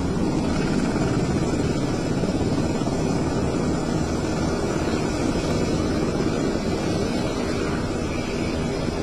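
Aircraft engines running with a steady, unbroken rumble, mixed with wind buffeting the microphone.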